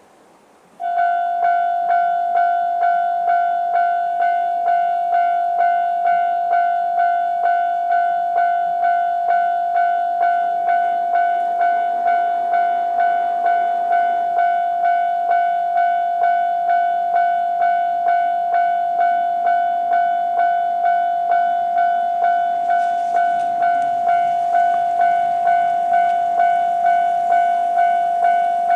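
Japanese railway level-crossing electronic warning bell starting abruptly about a second in and ringing a steady, bell-like tone repeated about twice a second: the crossing signalling an approaching train. A broader rushing noise joins it near the end.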